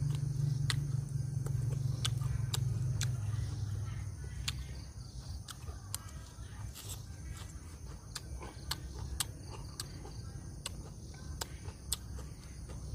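Evening garden ambience: insects chirring steadily, with scattered sharp clicks. A deep rumble is loudest at first and fades out about four seconds in.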